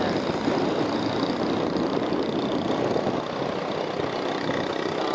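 Steady running of a vehicle engine on the move, with even road noise.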